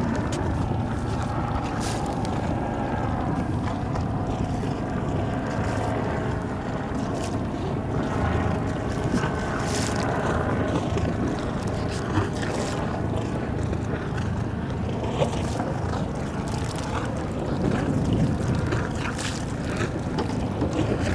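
A small motorboat's engine running steadily, with wind buffeting the microphone and a few brief clicks.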